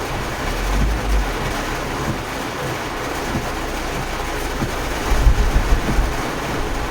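Steady rushing noise of floodwater, with wind buffeting the microphone in low bursts about half a second in and again around five seconds in.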